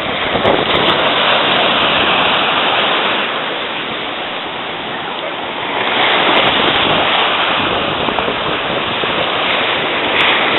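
Rushing water noise in two long swells, easing in between for a few seconds.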